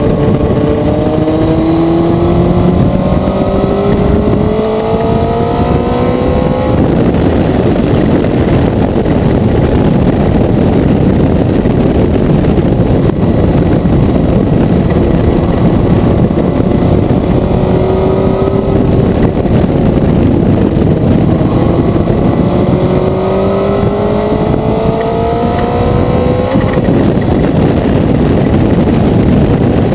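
Motorcycle engine under acceleration, its pitch climbing for the first several seconds before breaking off, then climbing again in the last third, all under constant heavy wind rush.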